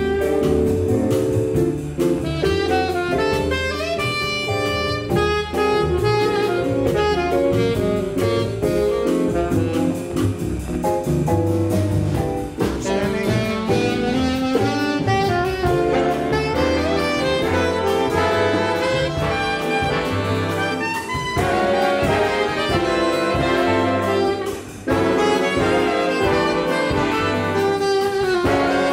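A jazz big band playing live, with saxophones and brass prominent over a drum kit.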